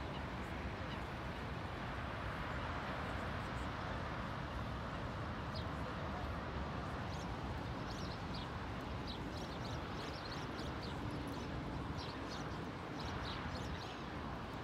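Birds calling: many short, high calls over a steady rushing background noise.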